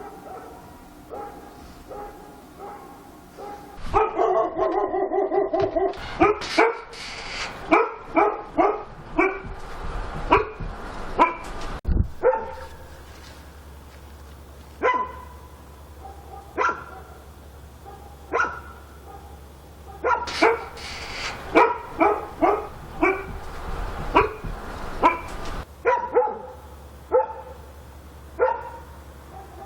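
Dog barking repeatedly: faint at first, then a loud, longer drawn-out cry about four seconds in, followed by sharp barks roughly once a second with a quick flurry past the middle.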